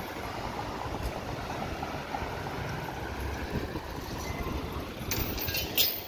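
Steady city street traffic noise, a low rumble of passing vehicles with wind on the microphone. Near the end comes a short burst of sharp high-pitched hissing, the loudest moment.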